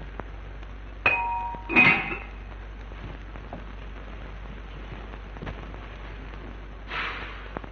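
Steady hiss and crackle of an early-1930s film soundtrack. About a second in come two sharp knocks under a second apart, the second louder, each with a brief ringing tone, and a soft rustle near the end.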